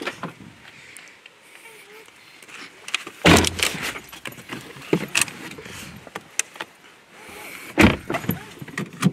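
A car door being opened with a click, then handling noise and two heavy thumps, about three seconds in and again near the end, as someone climbs into the passenger seat and the door shuts, with clicks and rustling between.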